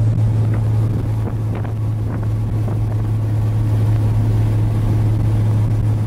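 Inside a moving vehicle's cab: a steady low engine drone under a constant rush of wind buffeting the microphone.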